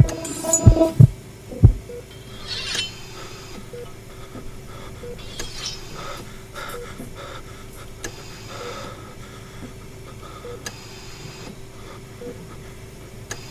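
Sound-effect heartbeat: low thumps that stop under two seconds in. Then a steady electronic hum with a short soft beep about once a second, and a few brief hissing swells.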